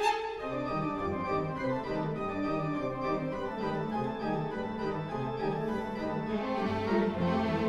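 Organ playing a passage of quick, evenly paced notes.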